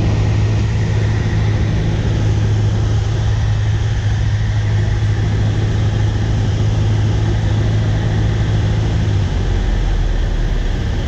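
Small propeller plane's engine droning steadily, heard from inside the cockpit with air noise; about nine seconds in the engine note drops lower as power comes back on the landing approach.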